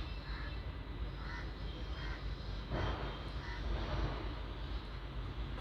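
Crows cawing, a series of short harsh calls with a louder one about three seconds in, over a steady low hum.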